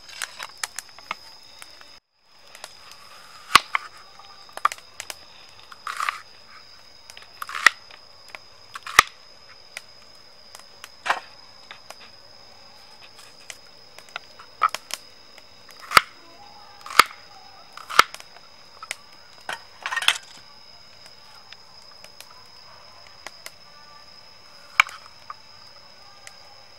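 A wood fire crackles for about two seconds. After that come irregular knocks and taps of food and a hand on a wooden cutting board. A steady high-pitched whine sounds throughout.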